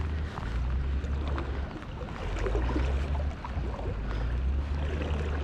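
Wind buffeting the microphone in a steady low rumble, with scattered light ticks and faint water sounds over it.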